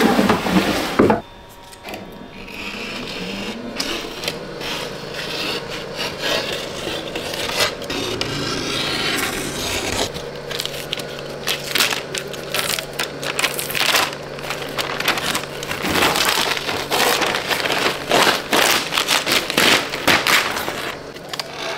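Clear plastic sheeting and tape being peeled and pulled off the resin-coated rim of an epoxy resin clock blank, crinkling and crackling with irregular sharp ticks and scrapes that grow denser about halfway through. A low steady hum sits underneath through the middle.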